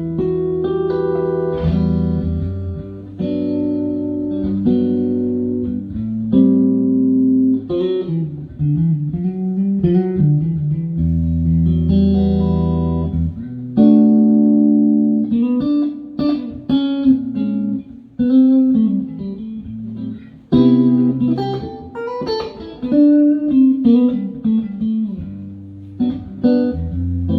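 Stratocaster-style electric guitar with Fatpups Crossroads pickups being played: a run of single notes and chords, with some bent notes.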